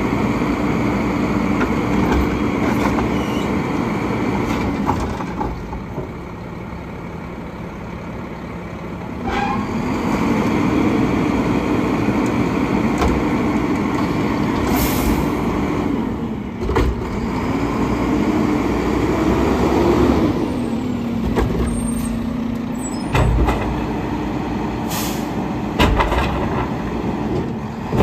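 Mack LEU front-load garbage truck's engine revving up and settling again in several stretches to drive the Heil Odyssey hydraulics as the arms lower the Curotto Can, dropping to a quieter idle for a few seconds early on. Two short sharp hisses of air, about halfway and a few seconds before the end, and a few knocks of the can near the end.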